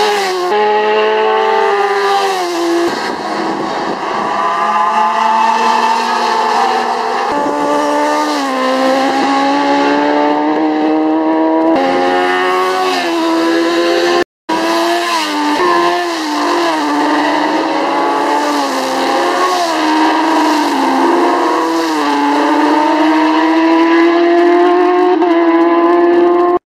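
Racing motorcycles at full throttle on a road course, engine pitch climbing hard and dropping sharply at each upshift, several times over. The sound breaks off for a moment about halfway through, then carries on.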